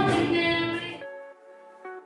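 A young woman singing into a microphone over accompaniment. About a second in the sound cuts off suddenly, leaving quieter instrumental music with a single click near the end.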